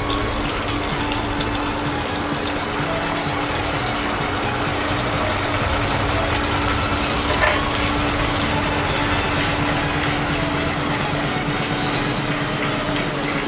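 Tomato-onion gravy sizzling and bubbling steadily in a nonstick wok over a full gas flame, with a wooden spatula stirring through it. One short knock about halfway through.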